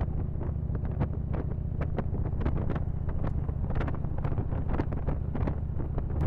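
Wind buffeting the microphone of a camera on a moving motorcycle, in irregular gusts over a steady low rumble.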